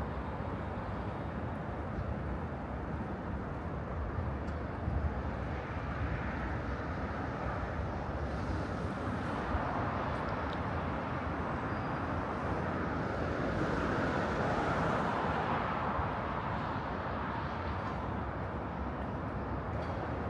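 Steady road traffic noise from cars on a wide multi-lane road, swelling for a few seconds past the middle as vehicles pass.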